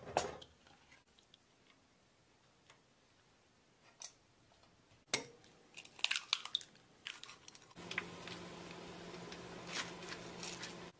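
Kitchen prep sounds: a few sharp knocks and taps of hands and utensils on a steel pot and a ceramic bowl, then about eight seconds in a steady sizzle with a low hum, the sound of croquettes deep-frying in oil, which cuts off suddenly near the end.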